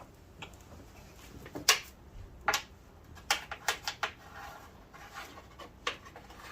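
Scattered light clicks and knocks of small metal parts and tools being handled while hunting for loose nuts and bolts, the sharpest knock about one and a half seconds in and a quick run of clicks in the middle.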